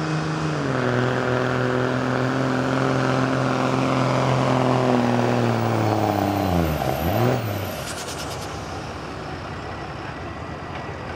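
Dodge Ram 2500's 5.9-litre Cummins inline-six turbodiesel pulling hard under load, its pitch sagging slowly as the load builds. The engine sound falls away sharply about seven seconds in as the pull ends, leaving a steady background noise.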